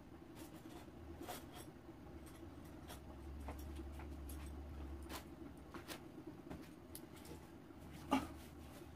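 Faint scattered clicks and knocks of someone moving about and handling kitchen things over a low steady hum. The loudest, a single knock about eight seconds in, comes as a frying pan is brought to the table.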